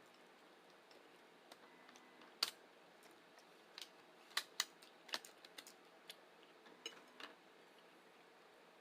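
Faint, irregular light clicks and taps, about a dozen, the sharpest about two and a half seconds in.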